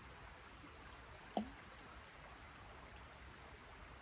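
Faint, steady flowing water of a small stream. About a second and a half in comes one brief sharp sound that glides down in pitch.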